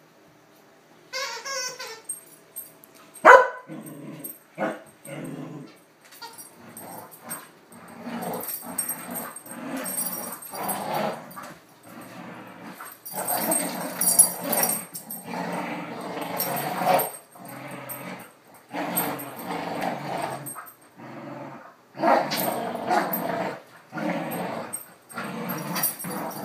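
Two dogs growling and scuffling in rough play as they tug at a plush toy, in repeated rough bouts about a second long. There is one loud, sharp sound about three seconds in.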